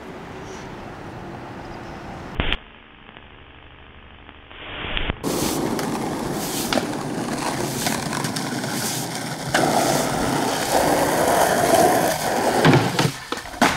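Skateboard wheels rolling on rough asphalt, a steady gritty rumble that grows louder about two-thirds of the way in, with sharp clacks of the board near the end.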